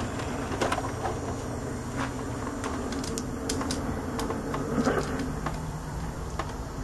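Scattered clicks and light knocks from hands handling the metal cover of a VHS VCR, over a steady low hum.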